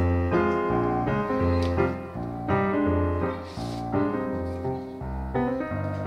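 Background piano music, a slow melody over deep bass notes that change about once a second.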